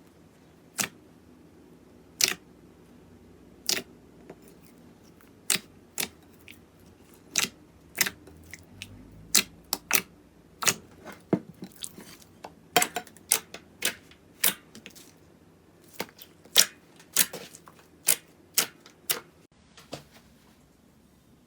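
Slime being handled, giving sharp, irregular pops and clicks, sparse at first and coming faster through the middle and later part before tailing off near the end.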